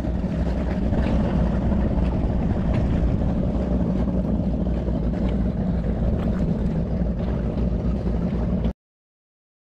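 Strong wind buffeting the microphone as a steady low rumble, which cuts off abruptly into silence near the end.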